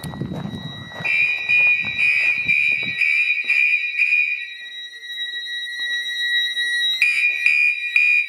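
Fire alarm sounding in march-time code, about two pulses a second. It cuts out for a couple of seconds partway through and then starts again, a quirk of this alarm, which only accepts about five seconds of coding at a time. A fainter steady high tone from another alarm device runs underneath.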